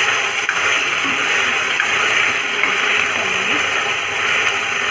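Onion and capsicum sauce sizzling and bubbling in a hot wok over a high flame, with water just added to it: a steady, loud hiss.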